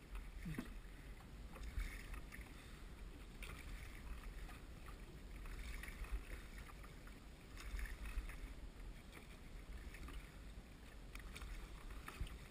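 Oars of a wooden rowing boat dipping and pulling through calm water, a faint splash and swish about every two seconds, over a low steady rumble.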